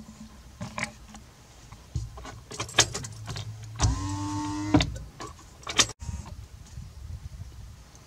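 Car's electric power window motor running, with a low hum and a steady whine for about a second in the middle as the side glass is lowered. Several sharp clicks and knocks come before and after the whine.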